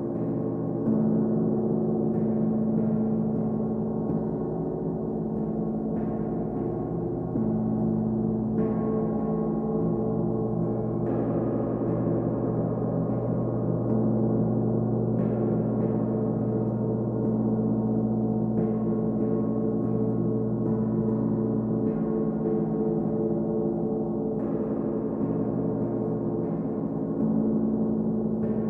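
Large hanging gongs, one of them a Paiste, struck with mallets: a soft new stroke every second or two, each tone ringing on and blending into the next in a steady, sustained wash.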